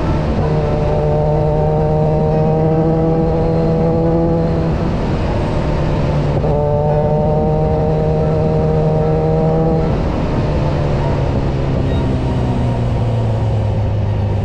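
Kawasaki Versys 1000 inline-four motorcycle engine running at steady cruising revs, heard from the rider's position over a rush of wind noise. The pitch jumps up about six and a half seconds in and sinks slowly over the last few seconds as the revs fall.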